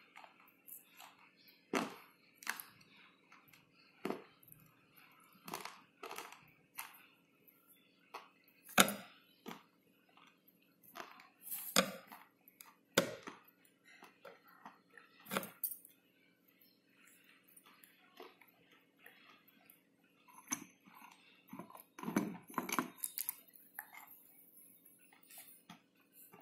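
Slate pencil crunched and chewed between the teeth: irregular sharp crunches and clicks, a few seconds apart, with quieter crackling chewing between them.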